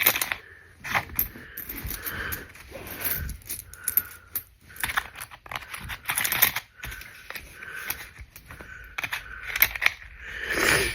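Pennies clinking and clicking against one another as they are counted and handled by hand, in quick irregular clicks with short scraping bursts.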